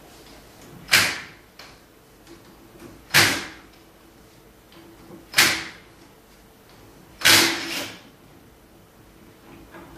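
Craftsman cordless drill-driver run in four short bursts, about two seconds apart, driving screws into an aluminium carriage plate.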